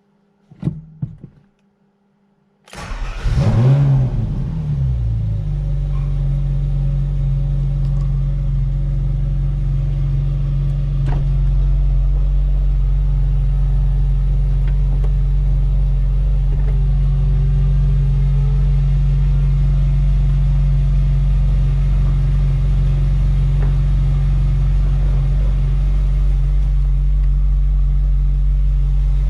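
Ferrari 458 Spider's 4.5-litre V8 cranks and fires about three seconds in, flares briefly in revs, then settles into a steady idle. A couple of faint clicks come before it.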